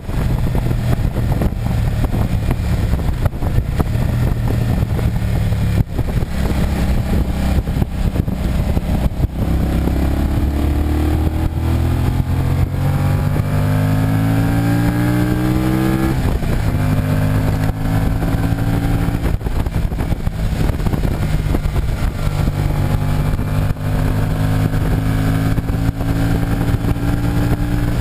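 Kawasaki Vulcan 750's V-twin engine running at road speed under loud wind rush and buffeting on the microphone. About ten seconds in, the engine note rises steadily for several seconds as the bike accelerates, then drops abruptly around sixteen seconds in at a gear change and settles back to a steady cruise.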